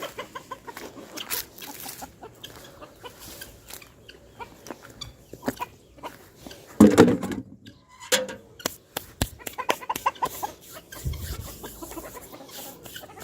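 Chickens clucking, with many short sharp clicks and taps and one louder call about halfway through.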